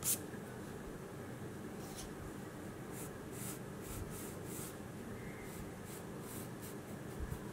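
Graphite pencil scratching on drawing paper: a series of short separate strokes as lines are sketched, with a louder, sharper stroke right at the start.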